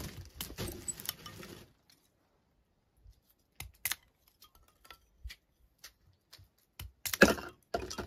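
Water noise for the first second and a half, then sparse small clicks and clinks of objects being handled, with a louder clattering burst about seven seconds in.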